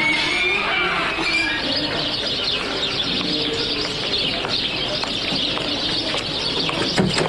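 Birds chirping and cooing over steady outdoor background noise.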